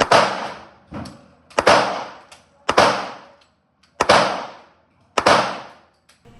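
Six gunshots from a firearm at a shooting range, spaced about a second apart, each trailing off in a short echo; the second shot is quieter than the rest.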